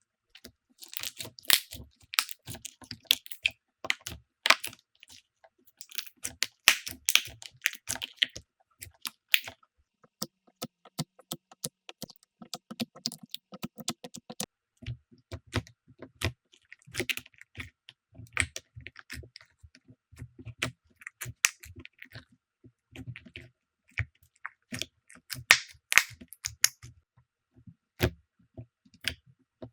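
Slime being squeezed, poked and stretched by hand, giving a dense run of irregular sticky clicks and pops, with a softer, faster crackle in the middle.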